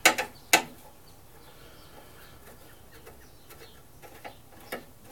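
Two sharp clicks about half a second apart, then faint scattered ticks as a screwdriver works a screw in the top cover of a lawn mower engine.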